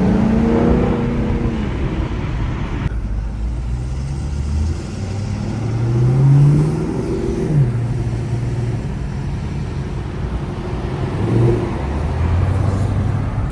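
Pontiac G8 GT's V8 engine under way, its revs rising and falling through several pulls, the strongest surge about six seconds in.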